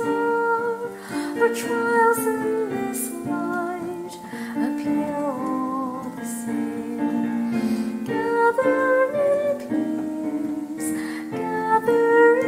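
A woman singing a hymn with her own piano accompaniment, sustained chords under a flowing sung melody.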